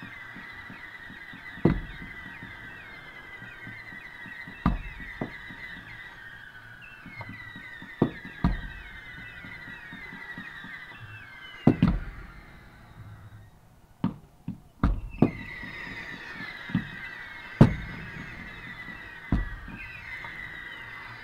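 Fireworks close by: a ground-launched firework throwing up a column of sparks gives a continuous high whistling made of many short falling notes. About a dozen sharp bangs sound at irregular moments. The whistling drops out for a couple of seconds past the middle, then starts again.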